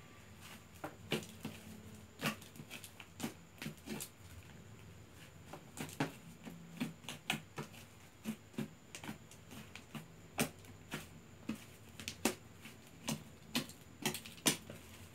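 Fluffy slime being kneaded and squished by hand, giving irregular sharp little pops and clicks, about one or two a second.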